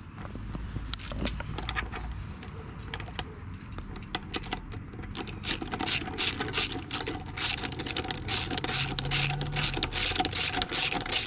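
Ratchet wrench clicking as it turns the screw of a gear puller, drawing the crankshaft out of a split 150cc pit-bike crankcase. Scraping and metal handling at first, then from about halfway a steady run of sharp clicks, roughly three a second.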